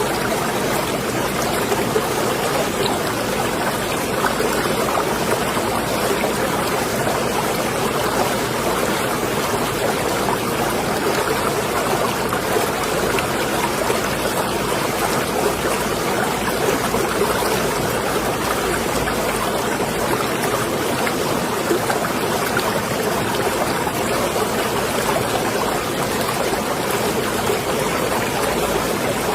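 Steady sound of moving water in a marina, an even wash with no single splashes or knocks standing out.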